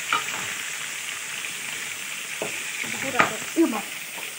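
Fish pieces frying in oil in a steel kadai, a steady sizzle. A metal spatula knocks and scrapes against the pan a few times, sharpest about three seconds in.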